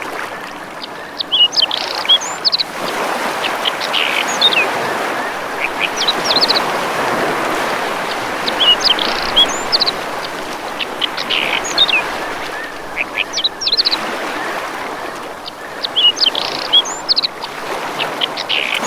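Birds chirping in short runs of quick high notes that come back every two to three seconds, over a steady rush of water.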